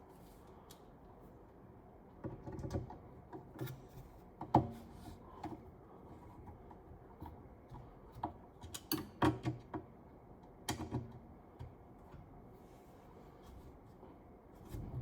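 Scattered clicks, taps and light knocks from hands working on a hugger ceiling fan's parts and screws, in two bursts of handling with quiet between.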